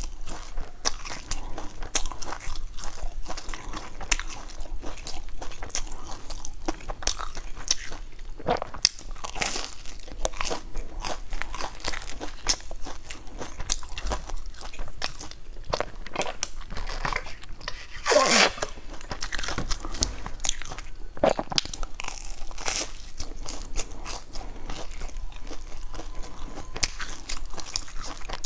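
Close-up biting and chewing of a crusty, crumb-topped bread bun: the crisp crust crackles in many small crunches. There is one louder burst about eighteen seconds in.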